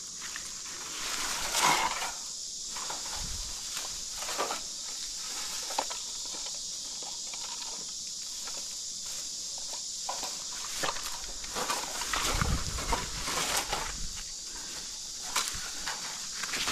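Footsteps and rustling in undergrowth, as scattered short crackles and scuffs, over a steady high hiss. There is a louder patch of rustling and scuffing about twelve to fourteen seconds in.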